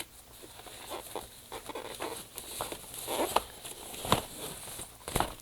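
Cardboard and plastic keyboard packaging being handled during unboxing: irregular rustling and small clicks, with two sharp knocks about four and five seconds in.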